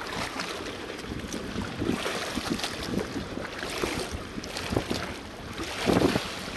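Wind buffeting the microphone over water lapping and sloshing against shoreline rocks, with scattered soft bumps and a louder one about six seconds in.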